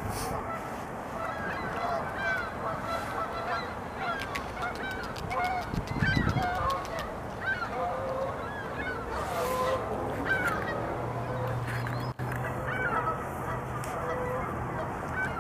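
A flock of geese honking, with many short calls overlapping throughout. There is a quick run of sharp clicks around the middle, and a low steady hum in the last few seconds.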